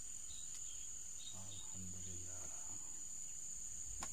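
Steady, high-pitched chorus of crickets trilling without a break.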